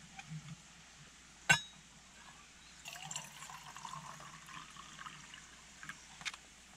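Water poured from a plastic bottle into a stainless steel mug sitting on a canister gas stove, a trickling pour lasting about three seconds from around three seconds in. Before it, a single sharp knock about a second and a half in is the loudest sound.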